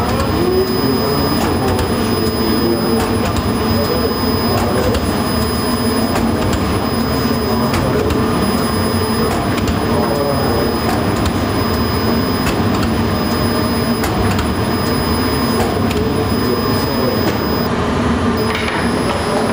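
Machinery of an automated barbari-bread line, a conveyor with a dough-grooving press, running with a steady, loud mechanical din. A thin high whine runs through it and drops out briefly near the end, with scattered light clicks.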